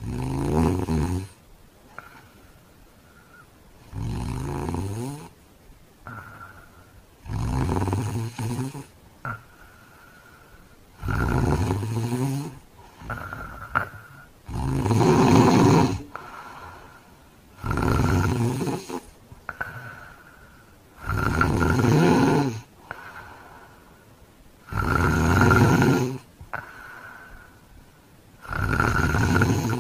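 A man snoring heavily: loud, rattling snores on each breath, nine of them about every three and a half to four seconds. A faint high whistle can be heard between the snores.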